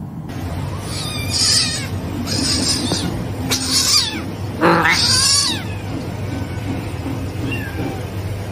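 Kitten mewing: four high-pitched cries in quick succession, several falling in pitch, over a steady low hum.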